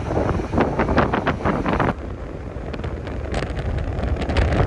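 Wind rushing and buffeting against the phone's microphone from a moving car, in irregular gusts over low road rumble. The sound drops abruptly about two seconds in, where the footage cuts, then the gusts build again.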